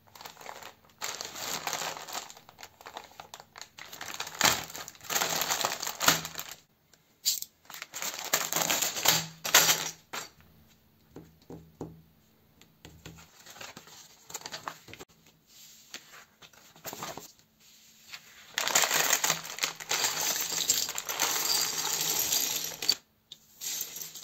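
Small plastic building bricks clattering and rattling against one another as hands pour them out and spread them over the table, mixed with the crinkle of the plastic parts bag. The clatter comes in bursts and is densest in the last few seconds.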